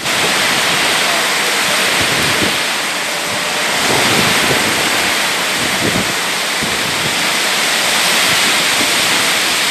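Torrential rain pouring down in a strong storm wind: a loud, steady rushing hiss.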